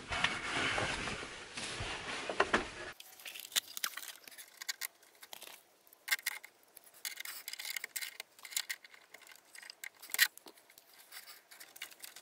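A steady rushing noise for about three seconds, then cut to scattered small metallic clicks and scrapes of channel-lock pliers working the flare nuts on a mini-split's refrigerant line connections as they are tightened.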